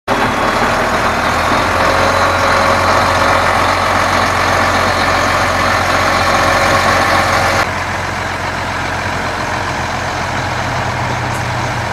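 A Case IH 7240 tractor's diesel engine runs steadily while it tows the trailer-mounted landing craft. About two-thirds of the way through, the sound cuts suddenly to a quieter, steady low engine hum.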